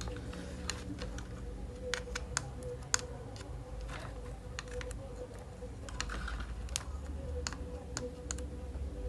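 Irregular light clicks and taps of small tools and components being handled on a workbench, over a steady faint hum.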